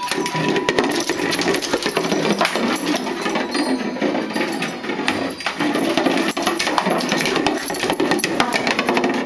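Wire Fox Terrier playing on a wooden deck: a dense run of clicks and scrabbling from its claws on the boards over a steady mid-pitched noise that breaks off briefly every second or two.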